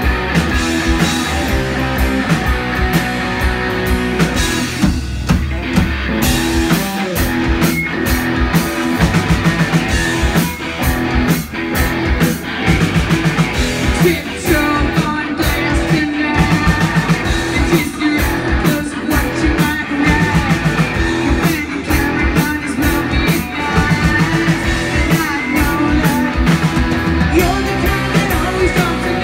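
Live rock band playing: electric guitars and a drum kit keeping a steady beat, with a woman singing into the microphone.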